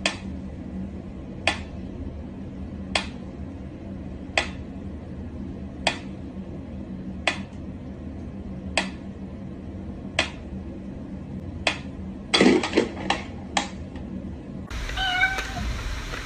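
Pyramid-shaped mechanical pendulum metronome ticking at a slow, even pace, about one tick every second and a half. Near the end a quick run of several clicks and knocks breaks into the rhythm.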